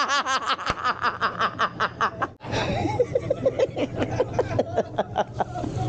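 People laughing hard in quick, rhythmic bursts of laughter. The laughter breaks off sharply for a moment about two and a half seconds in, then goes on.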